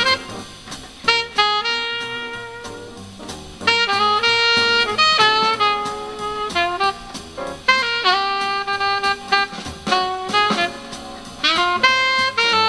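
Jazz saxophone melody, with backing, played through a small Pioneer loudspeaker driven by a homemade 1 W amplifier built on an AN17811A power amplifier IC. The phrases are made of held notes and short runs with brief gaps between them.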